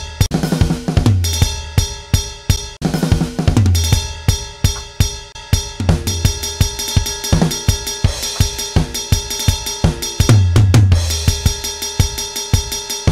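Sample-replaced, programmed drum kit track playing back: kick, snare, toms and cymbals, with fast runs of kick-drum hits. The hits vary in loudness as the drum-replacement plugin's input gain is ramped down by automation, turning a flat full-velocity part into a more dynamic one.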